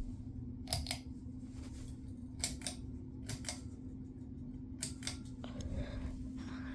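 Several sharp clicks, mostly in pairs, from the ceiling fan's pull-chain switch being pulled to step it to low speed, over a steady low hum.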